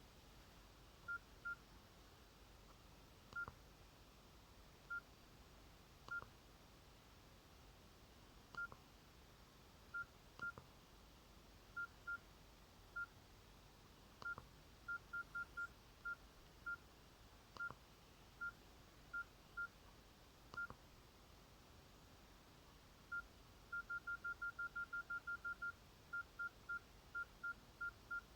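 Nokia N70 keypad tones: short, single-pitched beeps, one per key press, at irregular intervals, with a quick run of about a dozen beeps near the end. Some beeps come with a faint click of the key.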